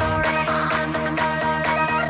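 Background music: an electronic dance track with held, layered chords.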